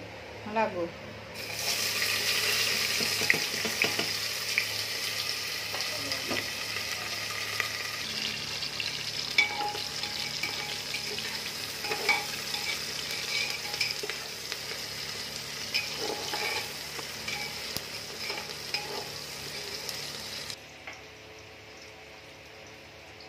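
Sliced onions sizzling as they fry in hot oil in a cooking pot, with scattered clicks of a spoon against the pot as they are stirred. The sizzle starts about a second in and cuts off near the end.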